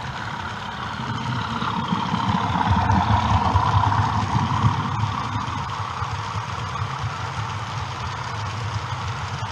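OO gauge model diesel locomotive and its wagons running past: a steady mechanical rumble that swells to its loudest about three to four seconds in as the train comes close, then settles as the wagons keep rolling by.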